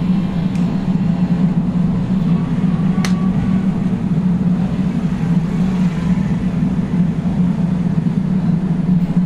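A steady low mechanical drone, as of a motor or engine running without change. One sharp click comes about three seconds in.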